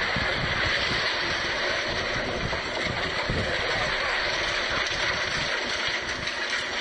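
Hurricane wind and rain: a steady rushing noise with an unsteady low rumble.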